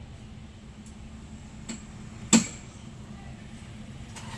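A single sharp click or knock about two seconds in, over a steady low background hum, with a fainter tick just before it.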